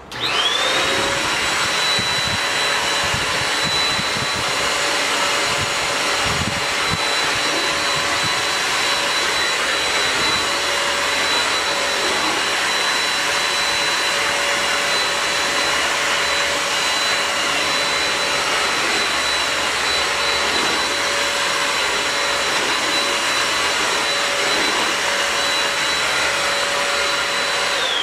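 Mondial Cyclo 2-in-1 stick vacuum cleaner switched on, its motor whine rising to speed within about a second, then running steadily with a high whine over the rush of suction while it vacuums a ceramic tile floor.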